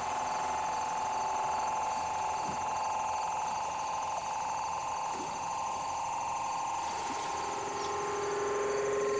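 Battery-powered electronic synthesizer played in improvisation: sustained, finely pulsing electronic tones held steady, with a lower tone entering near the end.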